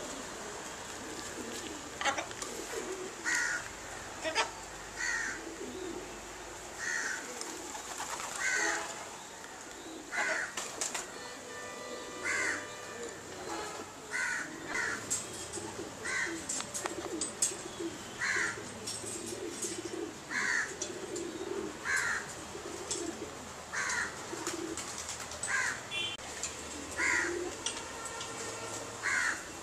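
Birds calling: a short, fairly high call repeated every second or two, with lower calls underneath.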